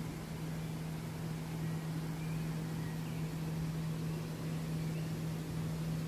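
Steady rushing of flowing water with a constant low hum running through it.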